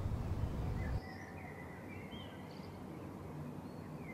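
Outdoor woodland ambience with birds chirping: several short calls and trills over a steady hiss. A low rumble in the first second cuts off abruptly about a second in.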